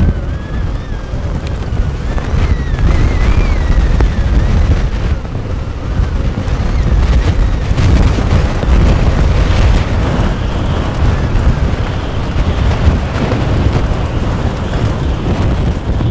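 Strong gusting wind buffeting the microphone, a loud low rumble that swells and eases, from a thunderstorm's outflow winds driving dust across open ground.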